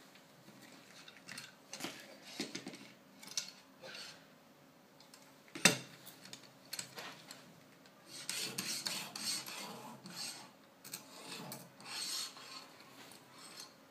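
Metal clicks from a fixed-angle knife sharpener's clamp and guide rod being handled, with one sharp knock about six seconds in. From about eight seconds in comes a run of rasping strokes as the sharpening stone on the guide rod is drawn along a kitchen knife's edge.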